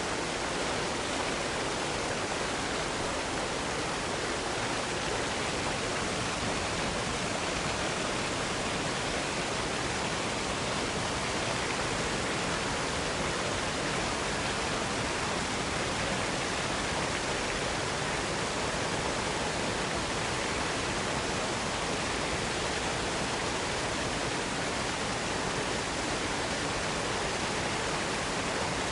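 Waterfall falling steadily: an even, unbroken rushing hiss spread across low and high pitches alike.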